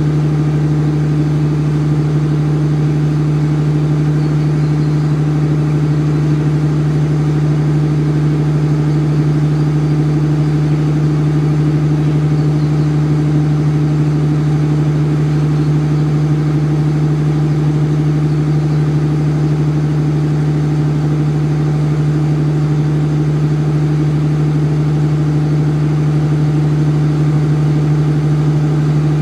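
Diesel generator set in a passenger train's power car running at constant speed: a loud, unchanging low drone.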